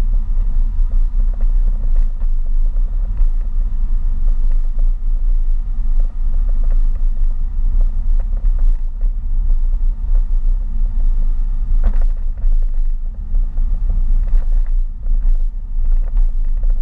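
Steady low rumble of a car driving, engine and tyre noise heard from inside the cabin, with a few small knocks.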